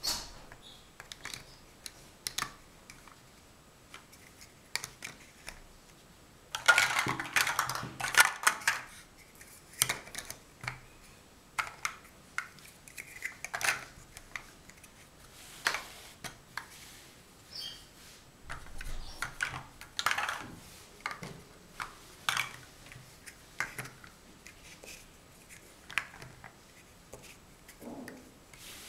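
Large hollow plastic Mega Bloks First Builders bricks clacking and clicking irregularly as they are picked up, pressed together and set down, with a busier stretch of rattling clatter about seven to nine seconds in.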